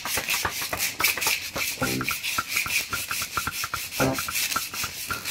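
80-grit sandpaper rubbed quickly back and forth along a bare steel welding-rod core, several rasping strokes a second, scouring off the last of the flux coating.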